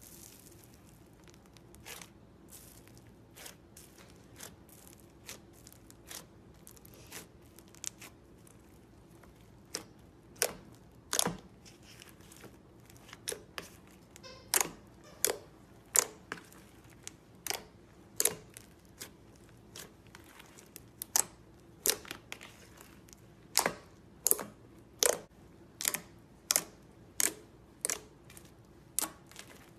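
Slime being handled and pressed, giving sharp pops and clicks of trapped air at an irregular pace. They are soft and sparse at first and become louder and more frequent from about ten seconds in.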